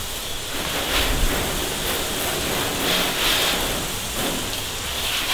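Water spraying from a garden-hose spray nozzle onto a car's windshield, roof and hood: a steady hiss of spray on the paint and glass.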